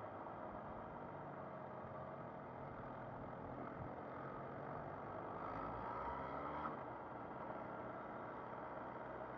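MV Agusta Brutale 800's three-cylinder engine running under way, its note rising and falling with the throttle. It swells and climbs in pitch about five seconds in, then eases back a couple of seconds later.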